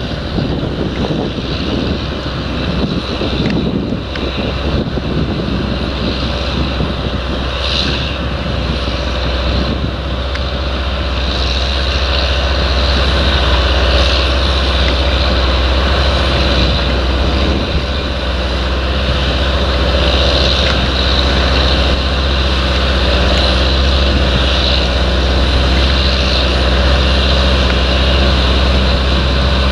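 Fendt 930 Vario tractor's diesel engine working steadily under load while pulling a reversible plough, growing louder about a third of the way in as it approaches. Wind buffets the microphone in the first few seconds.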